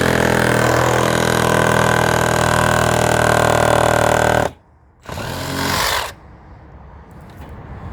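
Electric jigsaw cutting through timber: a steady run of about four and a half seconds that stops suddenly, then a second short burst of about a second.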